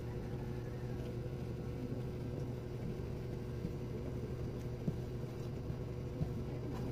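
A steady low hum, with a few faint short clicks from chewing and handling food.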